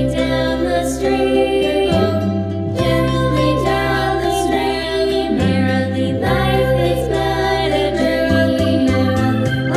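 A lullaby playing: a voice singing over sustained low accompaniment notes that change every second or two.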